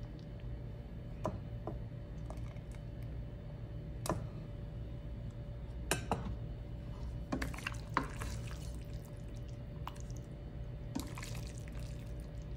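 Serving food: a ladle of lentil soup dripping and tapping against a ceramic bowl, then wet squelching as sauced pasta is lifted with a pasta server and dropped onto a plate. Scattered sharp clicks and knocks of utensils on pots and dishes, over a steady low hum.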